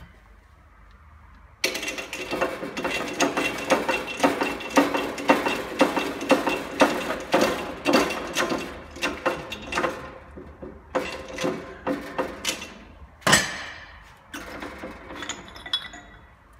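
Shop press being worked to press a transfer-case intermediate-shaft bearing into its housing through a mandrel on the outer race: a quick run of metallic clicks and knocks starting about two seconds in, several a second, thinning out after about ten seconds, with one louder knock near the end.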